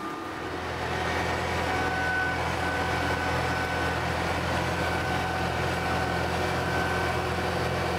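Tractor engine running steadily at a constant pitch as it pulls a soil-injection ripper through orchard ground.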